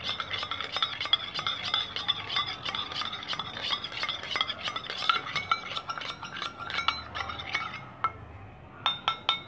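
A metal spoon stirring a thick paste of aloe vera gel, honey and turmeric in a metal bowl, a quick run of clinks and scrapes with the bowl ringing. The stirring stops about eight seconds in, then a few last taps of the spoon on the bowl.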